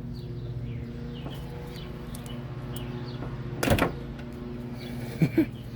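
Plastic and rubber handling noises as a tight rubber hose is worked off the nipple of an old windshield washer pump: a loud scrape or pop about two-thirds of the way in, then two sharp clicks near the end, over a steady low hum.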